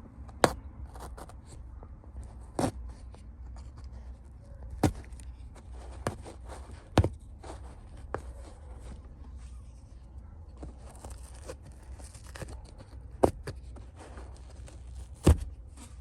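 Blade cutting into seat upholstery and foam being picked out: soft scratching and tearing with a sharp click or knock every couple of seconds, over a low steady hum.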